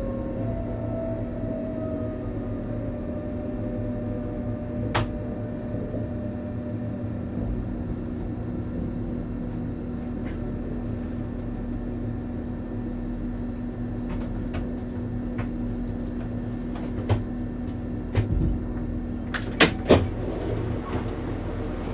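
Electric train running slowly out of a station, heard from the driver's cab: a steady electrical hum over low rolling rumble, with sharp clicks and knocks near the end as the wheels cross the points.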